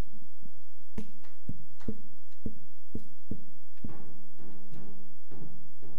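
A church band's drum kit starting up with sharp drum hits about twice a second. From about four seconds in, held low notes from the band join the drums.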